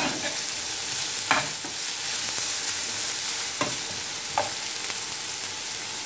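Chopped onions and green chillies sizzling in hot oil in a frying pan, stirred with a steel spoon that knocks against the pan three times.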